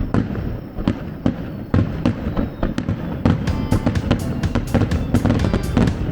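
Music with heavy, irregular percussive hits; held instrument notes join about three seconds in.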